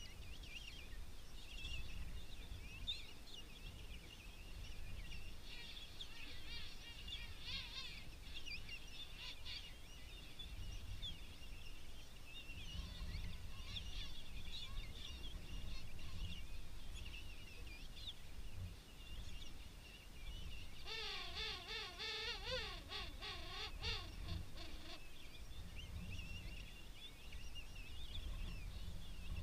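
A king penguin colony calling: a steady din of many overlapping high calls. About two thirds of the way through, one louder, warbling trumpet call lasts about four seconds. A low rumble runs underneath.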